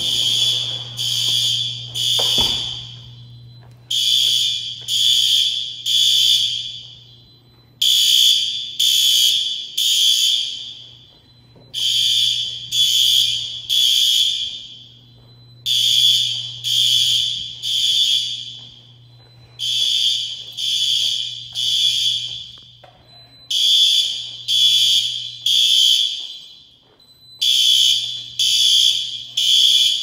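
System Sensor SpectrAlert Advance fire alarm horns sounding the temporal-3 evacuation pattern: three half-second blasts with a new group every four seconds, each blast echoing in the room.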